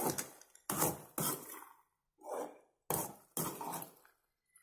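Metal spoon scraping and stirring thick, sugary apple halwa in an aluminium pan: a handful of sharp scraping strokes, roughly in pairs, with short gaps between them.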